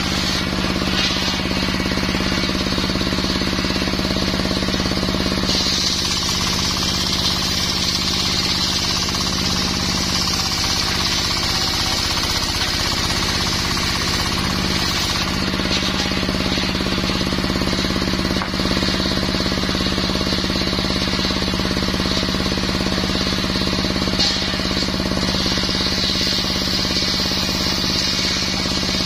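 Small engine-powered saw with a circular wood blade, a brush cutter converted to a wood saw, running steadily while cutting mahogany. The high blade noise swells and eases as the blade bites into the wood and is eased off.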